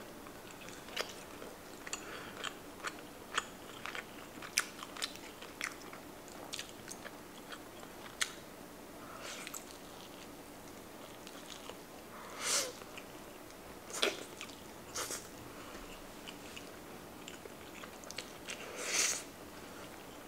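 Close-miked mouth sounds of a person chewing moist, tender rotisserie chicken eaten with the fingers: many small wet clicks and smacks throughout, with a few louder, longer smacks about halfway through and again near the end.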